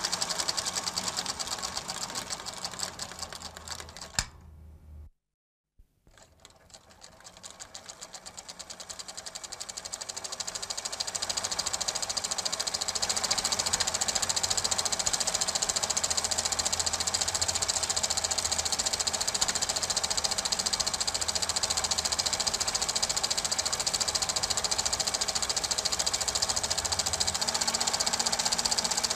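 Super 8 film projector running: a fast, even mechanical clatter with hiss. It cuts out briefly about five seconds in, then builds back up over the following several seconds to a steady level.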